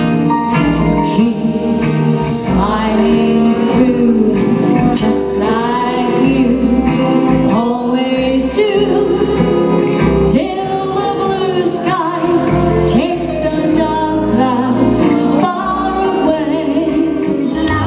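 A woman singing a 1940s-style wartime song into a microphone, backed by a live band of drums, guitar, horns and keyboard.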